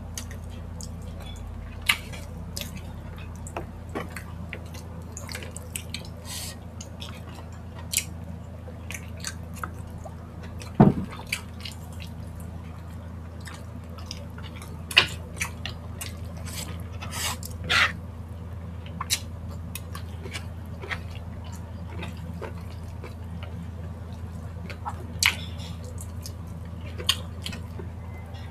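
Two people eating saucy spicy chicken feet and enoki mushrooms by hand: scattered wet lip smacks, sucking and chewing clicks, a few of them sharper and louder, over a steady low hum.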